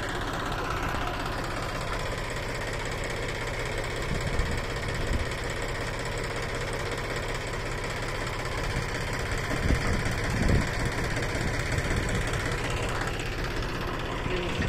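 Engine of an onion planter machine running steadily, with a few louder knocks about ten seconds in.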